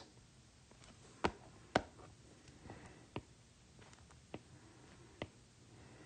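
Stylus tip tapping on a tablet's glass screen while drawing: irregular sharp clicks, a few louder among fainter ticks.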